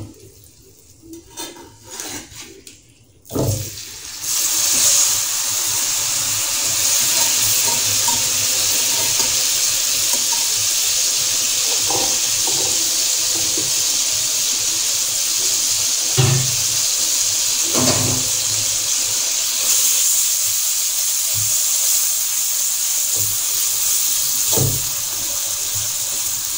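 Wet minced meat hitting hot oil in a steel wok starts sizzling suddenly about three seconds in, then fries with a loud, steady hiss as its moisture cooks off. A metal spatula knocks against the wok a few times.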